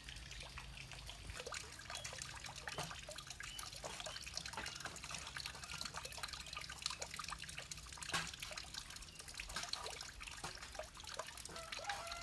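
Water trickling and dripping, heard as an even wash dotted with many small irregular drip-like clicks.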